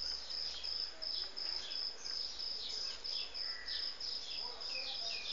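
Insects chirring in a high, rapid pulse about three times a second, with many short, falling chirps of small birds over it.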